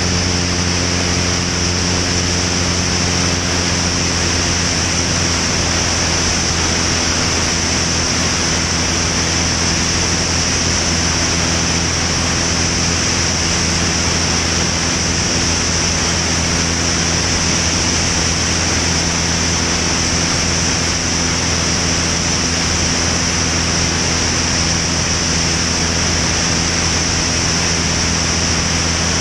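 Van's RV-10 light aircraft's engine and propeller running steadily at takeoff power during the lift-off and climb-out: a constant low engine drone under a heavy, even rush of wind on the camera mounted outside under the wing.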